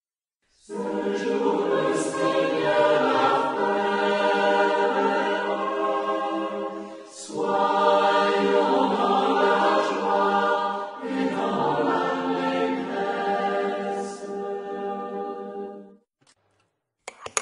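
A monastic choir of mixed voices singing unaccompanied liturgical chant in three long phrases. It begins about a second in and stops about a second before the end.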